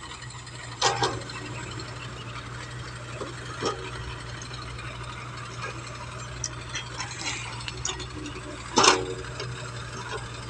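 Excavator loading earth into a tractor trolley: diesel engines run with a steady low hum, under scattered clanks and knocks from the bucket and the dumped soil. There is a sharp knock about a second in, another near four seconds, and the loudest near nine seconds.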